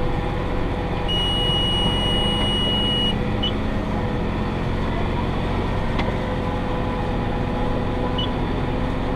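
Massey Ferguson 5610 tractor running steadily under load while pulling a John Deere 468 round baler, heard from the cab. About a second in, a high electronic beep sounds steadily for about two seconds, followed later by two short chirps.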